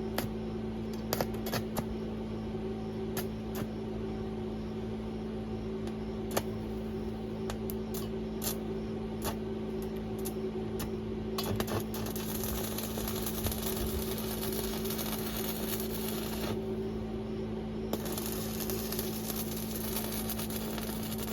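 Electric arc welding: a steady machine hum with scattered clicks, then the arc sizzling in two runs of about four seconds each from about halfway through, with a short break between them.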